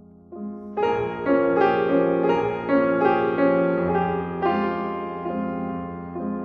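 Piano music: notes struck one after another and left ringing, the chords fading gently toward the end.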